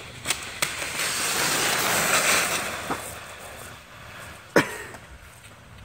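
Sled scraping as it slides across an icy driveway, growing louder to about two seconds in and then fading, with a single sharp knock a little past four and a half seconds in.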